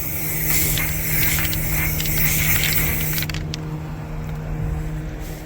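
Aerosol spray-paint can hissing in short spurts for about three seconds, then stopping, over the steady hum of an idling diesel engine.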